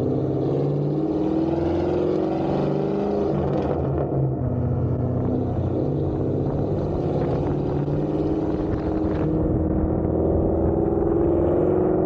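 Exhaust of a 6th-gen Chevrolet Camaro with catless long-tube headers, an X-pipe and an AWE Track axle-back, recorded right at the tailpipes while driving. The engine note is steady and loud, its pitch climbing slowly as the car pulls away, with a change about four seconds in.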